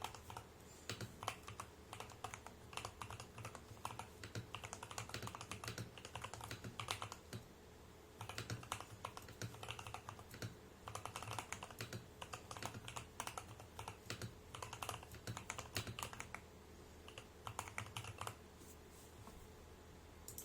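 Steady, fast typing on a custom 75% mechanical keyboard with Jwick tactile switches, a polycarbonate plate, a tape mod and MDA-profile keycaps: a dense run of keystroke clicks. It pauses briefly about 8 seconds in and thins out over the last couple of seconds.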